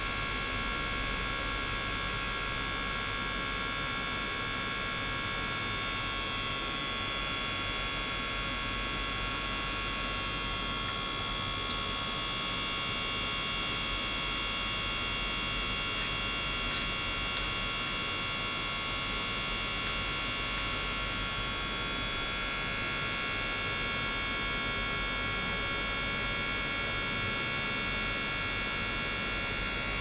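Submerged ultrasonic transducer box running in a water tank with water pouring onto it from a hose: a steady electrical hum with many steady high-pitched tones over an even wash of noise.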